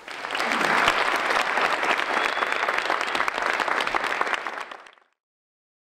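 An audience applauding, many hands clapping at once, fading out after about five seconds.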